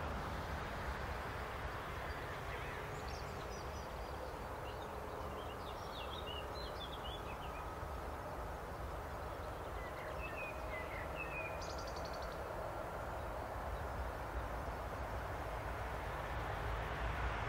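Low steady rumble of a DB class 189 electric locomotive and its freight train approaching along the line, growing a little louder near the end. Small birds chirp in two short spells in between.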